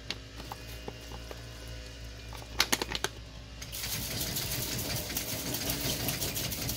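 A few sharp clicks of handling, then from about four seconds in a kitchen tap runs water onto kelp noodles in a plastic colander over a stainless steel sink.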